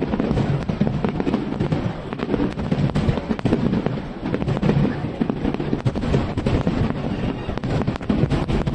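Aerial fireworks going off in a rapid, dense barrage: many bangs and crackles overlapping with a constant low rumble.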